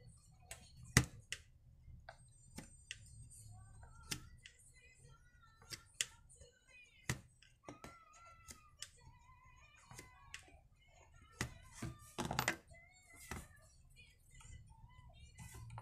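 Irregular plastic clicks, taps and short squeaks as a rubber fuel line is pushed and worked through the fuel-tank hole of an Oleo-Mac 937 chainsaw by hand. A sharp click comes about a second in, and a quick run of clicks comes near the end.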